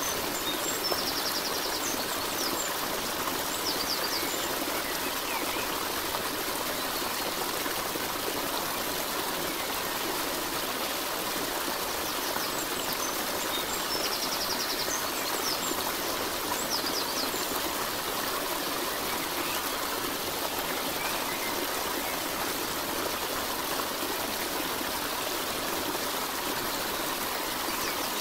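Steady rushing of a flowing stream, with a few faint high chirps now and then.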